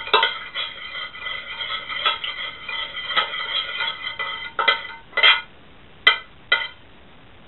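A metal spoon stirring and scraping around the inside of a stainless steel pot, the pot ringing continuously for about four seconds. Then come four separate clinks of spoon against pot.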